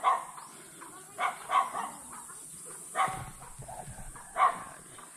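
A dog barking, about six short barks in irregular bursts a second or so apart.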